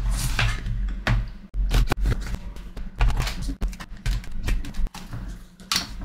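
Plastic case of a smart power strip being pried open with a pry tool: irregular clicks and snaps as its snap-fit clips let go, with knocks from handling the case.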